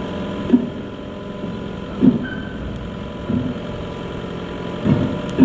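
Forklift engines idling steadily, with five short, loud thumps at uneven intervals over the idle.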